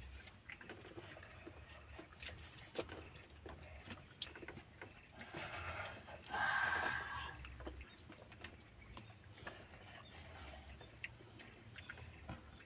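Close-up eating sounds: chewing and small wet smacking clicks, with a louder slurp of instant noodles about six seconds in.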